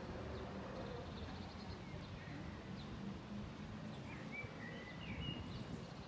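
Steady low outdoor rumble with faint bird chirps, a few short calls coming about four to five seconds in.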